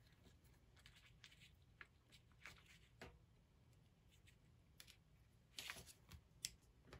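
Near silence with faint, scattered clicks and rustles of self-adhesive pearls being peeled off their plastic backing sheet and pressed onto a paper card, a few slightly louder clicks near the end.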